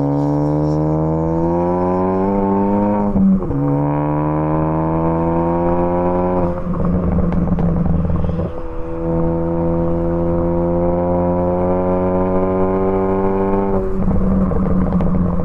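A 2014 Ford Focus ST's turbocharged 2.0-litre four-cylinder, tuned for pops and crackles with a catless downpipe and a Cobb cat-back exhaust, is accelerating hard through the gears. The engine note climbs, breaks off at a shift with a sharp crack about three seconds in, and climbs again. It goes rough and crackly for a couple of seconds around the middle, then rises steadily in a higher gear before another rough break near the end.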